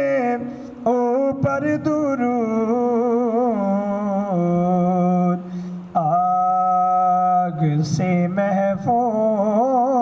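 A man sings an Urdu naat into a handheld microphone, drawing out long held notes with a wavering, ornamented melody.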